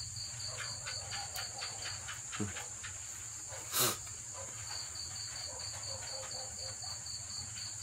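Crickets chirping in an even rhythm of about five chirps a second over a steady high-pitched hiss, pausing for a few seconds mid-way. One sharp knock about four seconds in.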